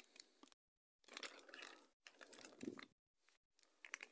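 Faint rustling and crinkling of the packaging around small telescope lenses as it is handled and unwrapped. It comes in several bursts, with two longer stretches in the middle and a few short crackles near the end.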